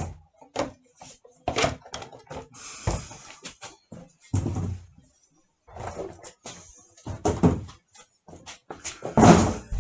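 Irregular knocks, thuds and rustling from a cardboard box and its packing being handled and opened.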